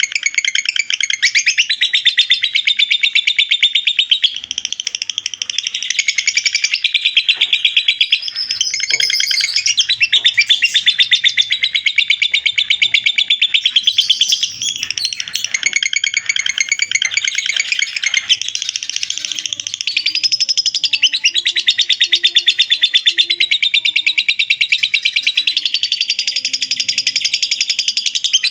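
Lovebird ngekek: a long, unbroken chattering song of rapid high notes repeated many times a second, dipping only briefly a few times.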